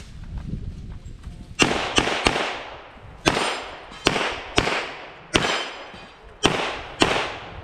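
Competition pistol firing nine rapid shots, starting about a second and a half in and coming mostly in quick pairs, each shot followed by a short decaying echo.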